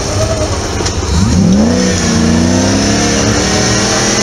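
Off-road 4x4's engine revving up sharply about a second in and held at high revs under load as it climbs a steep dirt bank.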